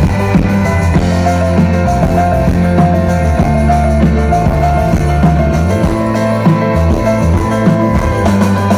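A live rock band playing loudly through a big stage PA, heard from within the audience: drum kit and electric guitars over a steady bass line.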